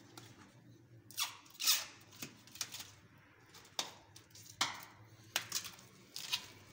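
Clear protective plastic film being peeled and ripped off the wooden rail of a new snooker table in short, sharp tearing rips, about eight of them, the film clinging on hard.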